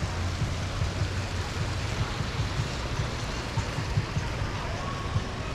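Wind buffeting the microphone in irregular low thumps over a steady rushing noise.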